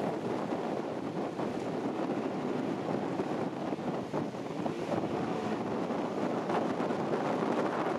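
A motorised river pirogue running steadily under way: the drone of its outboard motor mixed with wind buffeting the microphone and water rushing past the hull.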